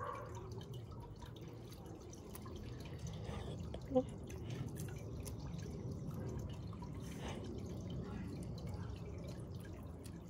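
Water trickling and dripping in a tiered garden fountain, with a short pitched sound about four seconds in.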